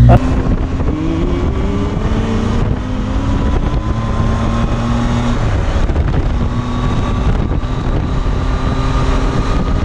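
Motorcycle engine running at road speed under heavy wind rush on a helmet-mounted camera's microphone, its pitch rising for the first few seconds as the bike accelerates.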